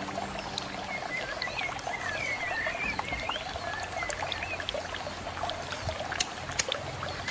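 Water trickling steadily from a hang-on-back aquarium filter into the tank, with wavering high chirps over it. Two sharp clicks about six seconds in as the cap of a plastic bottle is twisted open.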